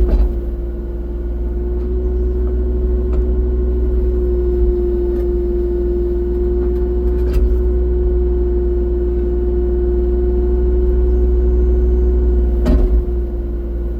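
Excavator engine running at a steady speed, a constant drone with a low rumble, with a few sharp knocks: one at the start, a fainter one about halfway, and a louder one near the end.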